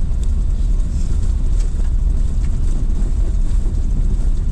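Car driving on a stony dirt road, heard from inside the cabin: a steady low rumble of tyres and engine, with a few faint ticks.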